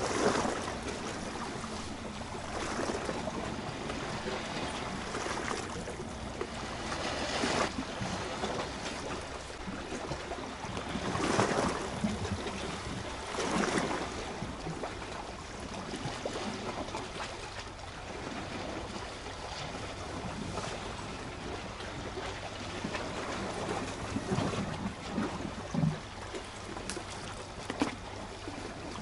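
Small sea waves washing and lapping against shoreline rocks, swelling up every few seconds, with a few light ticks near the end.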